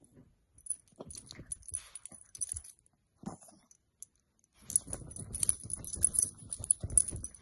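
Small dog scrabbling and pouncing on a quilted bedspread, its collar jingling, in short bursts at first and almost without a break from about four and a half seconds in.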